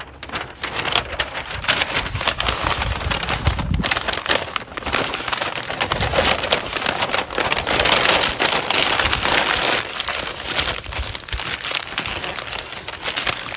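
Pink butcher paper crinkling and crackling as hands fold and wrap it tightly around a whole roasted chicken, with a dense run of sharp paper crackles throughout.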